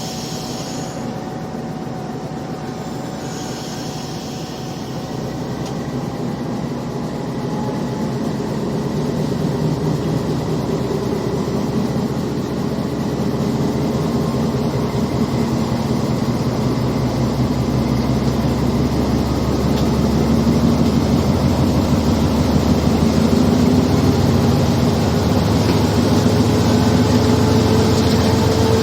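GE U20C-class diesel-electric locomotive running with a steady low engine rumble and train noise, growing steadily louder.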